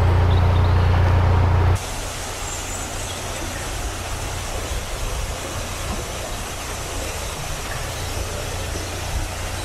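Narrowboat diesel engine running with a steady low hum. About two seconds in, the sound drops suddenly to a quieter, even hiss, with the engine still faintly humming underneath.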